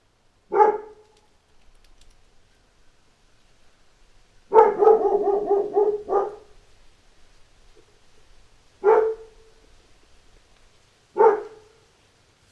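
A dog barking: a single bark, then a quick run of about six barks in a row, then two more single barks a few seconds apart.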